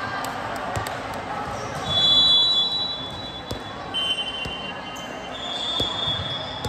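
Volleyball gym din: voices in the hall and sharp thuds of balls being hit and bounced, with three high, steady whistle-like tones of about a second each, the loudest about two seconds in.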